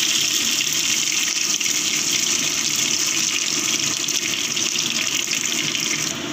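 Mustard oil sizzling in a karahi as it heats for tempering, a steady hiss that cuts off abruptly near the end.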